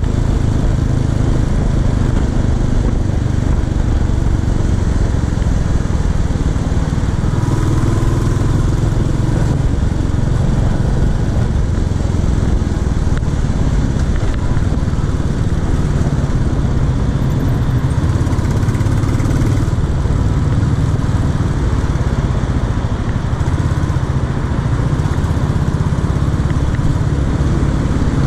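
Royal Enfield Classic 350's single-cylinder engine running steadily while the bike is ridden through city streets, heard from the saddle with wind and road noise mixed in.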